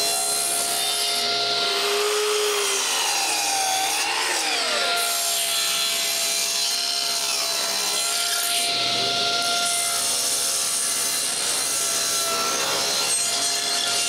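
Table saw ripping a wooden board into strips: a steady motor and blade whine under the hiss of the cut. The whine sags in pitch about two seconds in and climbs back up a couple of seconds later.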